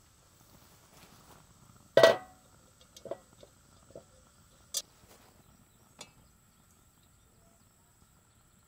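A loud metallic clank that rings briefly, followed by several lighter clinks and knocks: a cast-iron Dutch oven and its wire bail handle being handled onto a steel propane burner stand.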